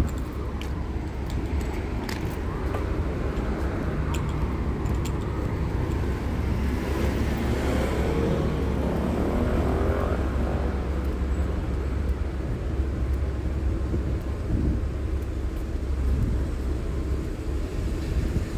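Road traffic on a city street: a steady low rumble, swelling as a vehicle passes about eight to ten seconds in, its engine note rising and then falling.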